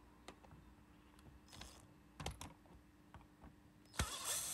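Light clicks and taps of tools and screws against the plastic of a Dyson DC25 ball assembly, then, about four seconds in, a click and an electric screwdriver whirring for about a second as it undoes the hidden Torx screw underneath.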